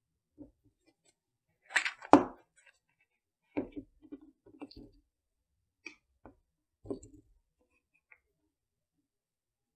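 White plastic lid being pried off a round plastic slime tub and handled, a series of short plastic clicks and knocks, the loudest about two seconds in.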